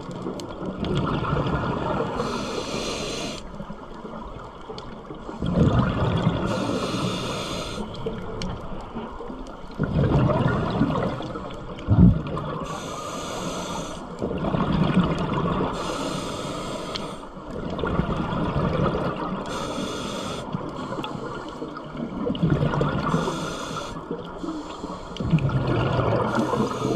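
Scuba diver breathing through a regulator underwater: hissing inhalations alternating with bubbling exhalations, a cycle about every three to four seconds. A single sharp knock comes about twelve seconds in.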